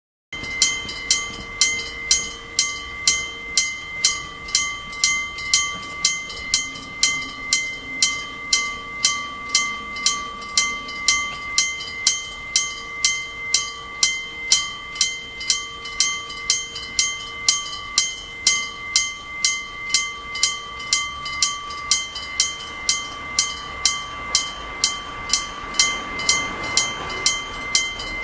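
Electric-bell level-crossing warning bell ringing steadily: an electromagnetic hammer strikes a metal gong about twice a second, and each strike rings on in clear tones.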